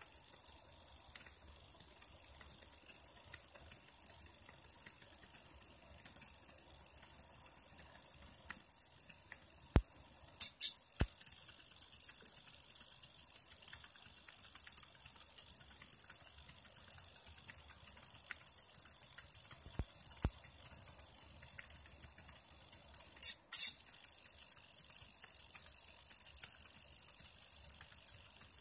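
Small homemade pen plotter running as its rack-and-pinion drive moves the pen: a faint, steady high-pitched whine from the drive motors with light, irregular ticking. A few sharper clicks come about a third of the way in, and a short cluster comes later.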